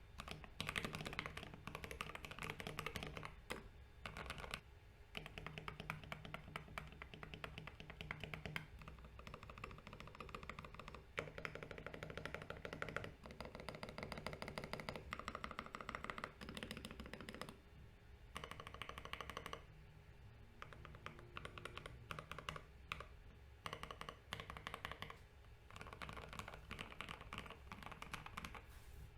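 Typing on a custom IDOBAO ID67 mechanical keyboard with lubed Gateron Ink Black V2 linear switches: a fast, continuous run of keystrokes with a few short pauses.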